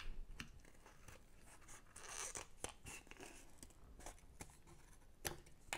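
Scissors cutting through thin cardboard: a series of faint, irregular snips and crunches, with a longer scraping cut about two seconds in.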